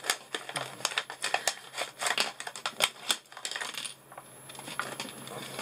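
A paper tool-kit pouch being handled and crinkled: a quick run of sharp clicks and crackles for about three seconds, then softer rustling after a short lull.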